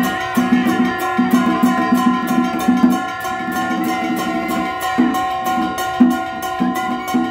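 Vietnamese Cao Đài ritual ensemble (nhạc lễ) playing: a kèn double-reed shawm holds a steady high melody over quick drum strokes, about five a second, with sharp cymbal and wood-block clicks. The drumming breaks off briefly about a second in and again around the middle.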